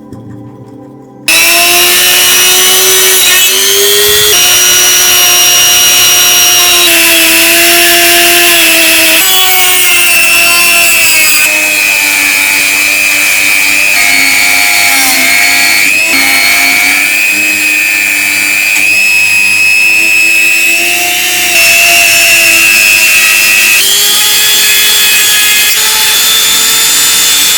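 An electric power tool running under load: a loud whine whose pitch shifts up and down as the load changes, over a steady hiss. It starts abruptly about a second in.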